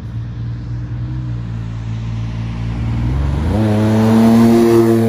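DeLorean DMC-12's PRV V6 engine as the car drives by, running steadily at first, then revving up sharply about three seconds in and holding the higher pitch, getting louder toward the end.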